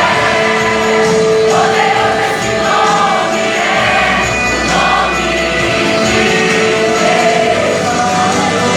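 Worship song performed live: a choir singing with instrumental accompaniment, voices holding long notes.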